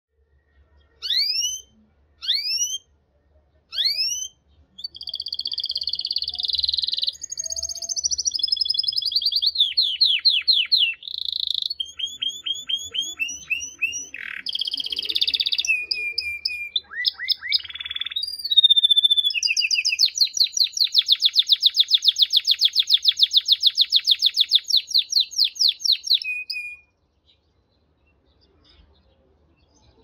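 Male domestic canary singing: three short rising whistled notes, then a long unbroken song of varied trills and rapid rolls that breaks off shortly before the end.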